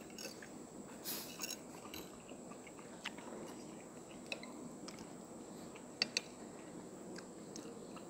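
Chewing and mouth sounds of a person eating fried noodles and egg, with scattered sharp clicks of metal cutlery on a plate, two close together about six seconds in. A thin steady high whine sits underneath.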